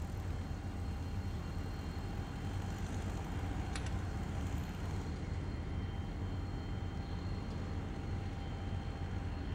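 A steady low engine-like rumble, with one sharp metallic click about four seconds in from a hand-thrown railroad switch stand as its lock and lever are worked.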